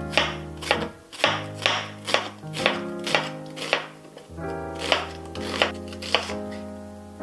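Kitchen knife slicing an onion on a wooden cutting board, each cut a sharp knock on the board, about two a second with a short pause a little past the middle. Background music with sustained chords plays underneath.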